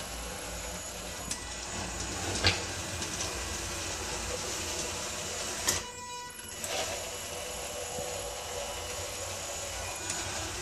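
Homemade robotic wet swiffer running steadily over tile, its drive motors humming. A sharp knock comes about two and a half seconds in, and another near six seconds as it meets the door; the motors then pause briefly before starting again.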